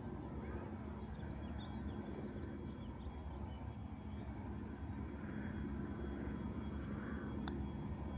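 Steady low outdoor rumble with faint scattered high chirps, and a single sharp click about seven and a half seconds in: a putter striking the golf ball on the green.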